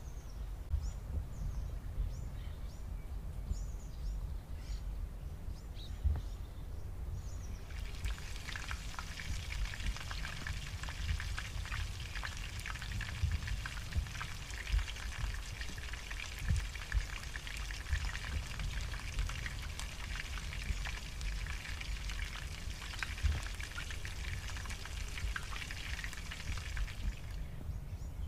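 Mint and onion pakoras deep-frying in hot oil: a dense crackling sizzle that begins about eight seconds in and cuts off near the end.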